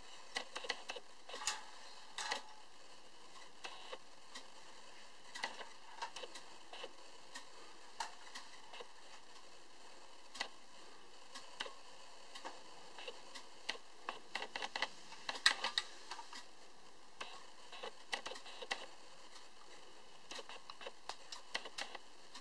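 Light, irregular clicks and taps of a 1960s Japanese tin-plate toy aircraft carrier being handled, with a denser run of clicks about two-thirds of the way through.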